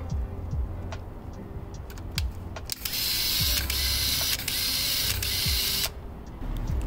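Small clicks of a film camera being handled and closed. About three seconds in, a loud motor whirs for about three seconds and stops, typical of the camera's motor winding newly loaded film to the first frame.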